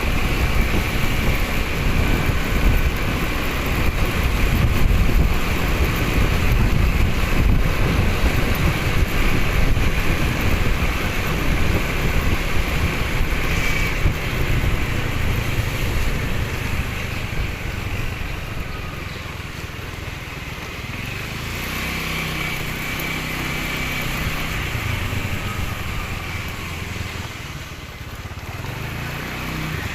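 Motorbike engine running on the move, with rumbling road and wind noise in the first half; the engine note comes through steadier in the second half and rises near the end as it revs.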